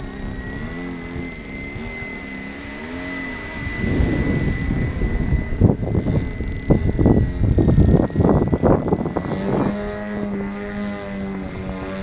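Radio-controlled BO 105 scale helicopter (470 size) in flight: a steady high whine with rotor tones that rise and fall. Strong wind gusts buffet the microphone from about four seconds in until near the end.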